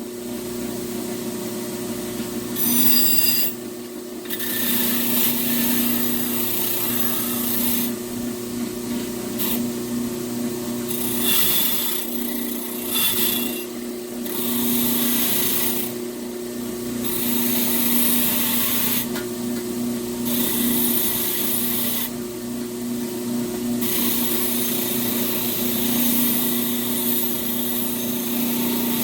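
Power grinder running steadily, with metal being ground in repeated passes of one to three seconds and short breaks between them.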